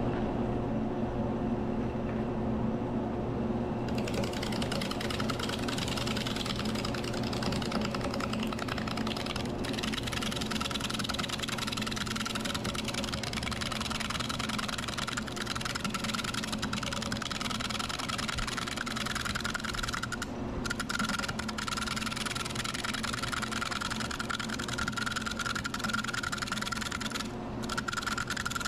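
Grizzly wood lathe running with a steady motor hum while a turning gouge cuts into a dry, punky spalted wood blank spinning at about 600 rpm. A rough, hissing cutting noise comes in about four seconds in and drops out briefly twice near the end.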